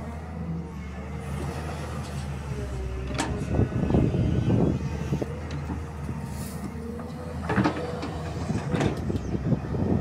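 SANY crawler excavator's diesel engine running under load, with a wavering hydraulic whine over the steady engine note. Clanks and knocks from the arm and bucket come in clusters around four seconds in and again near eight to nine seconds.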